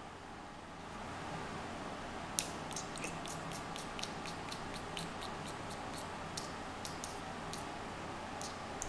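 A run of light, sharp clicks at a computer desk, irregularly spaced at about two to four a second, starting about two seconds in, over faint steady room noise.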